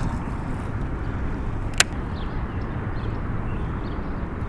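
Steady wind noise on the microphone by open water, with one sharp click a little under two seconds in.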